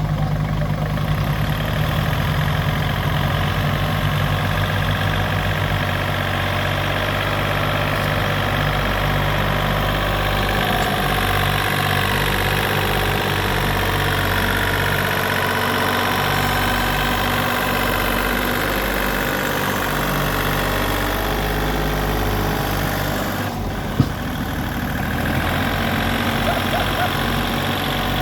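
Engine of a work machine running steadily, with one sharp knock near the end.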